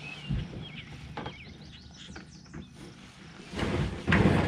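Birds chirping over a couple of light knocks, then near the end a kayak paddle blade dipping in and pulling through the water, the loudest sound here.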